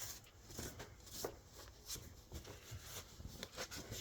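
Faint, irregular light clicks and rubbing from handling the parts of an old metal lathe.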